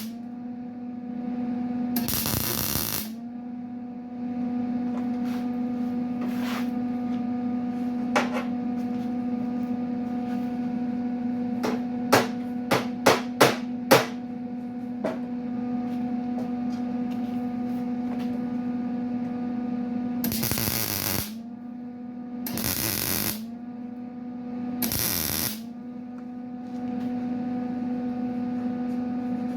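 An electric welder laying short tack welds on sheet steel: separate bursts of welding crackle, each under a second, twice early and three in close succession later. A steady electrical hum runs underneath and sags briefly after each burst. In the middle comes a quick run of five sharp metal taps.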